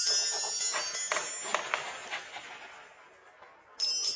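Glass marbles bouncing and rolling over the bars of a Little Tikes toy xylophone: bright ringing notes and clinks that die away over about three seconds, then a fresh burst of ringing near the end as the next marbles strike the bars.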